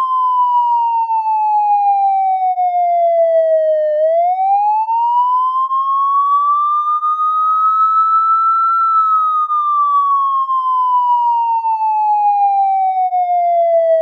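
Police siren wail: a single clear tone sliding slowly down, sweeping back up about four seconds in, then falling slowly again over the last five seconds.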